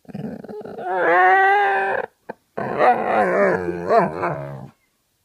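Vizsla dog howling and grumbling while lying down. A low grumble leads into a held, high howl about a second in; after a brief pause comes a longer howl that wavers up and down in pitch, like the dog is talking. It is the grumpy protest of a dog that doesn't want to get up.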